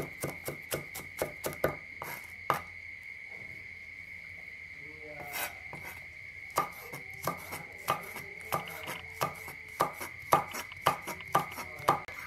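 Cleaver chopping red onion on a wooden cutting board: quick knocks of about three to four a second, which pause for a few seconds after about two and a half seconds and then resume. A steady high-pitched whine runs underneath.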